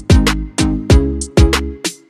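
Background music with a steady beat: a sharp drum hit about twice a second over sustained bass notes, with short high cymbal-like accents between the hits.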